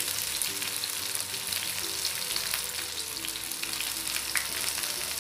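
Masala-coated whole fish shallow-frying in hot coconut oil with curry leaves in a nonstick pan: a steady, dense sizzle and crackle of the oil.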